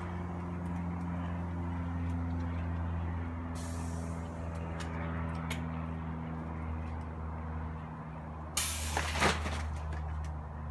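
Compressed air hissing out of the pneumatic wing rig's valves: a short hiss a few seconds in, then a loud, sharp hiss near the end as the wings fold down. A steady low hum runs underneath.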